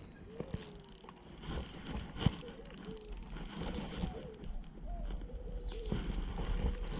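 Spinning reel being cranked in two short spells, its gears clicking rapidly, with a sharp knock about two seconds in. A bird calls in wavering notes underneath.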